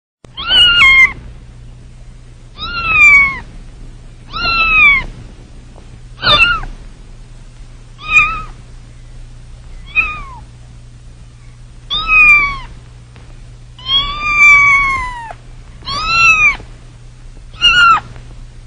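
A kitten meowing over and over, about ten high meows at roughly two-second intervals. Each meow rises and then falls in pitch, over a faint steady low hum.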